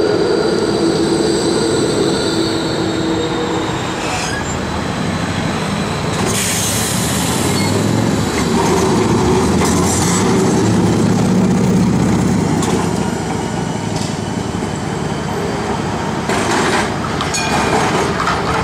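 Trams rolling past on street rails: steel wheels on the track, with a steady high whine in the first few seconds. An older W-class tram passes close about ten seconds in with a heavier, lower rumble.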